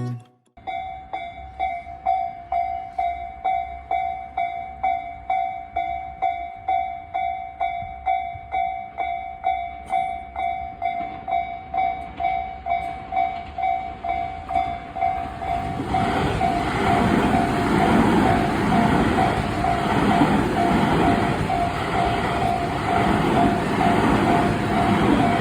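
Japanese railway level-crossing warning bell ringing steadily at about two strokes a second. About fifteen seconds in, an electric commuter train's running noise comes in loud and stays, rumbling past while the bell keeps ringing.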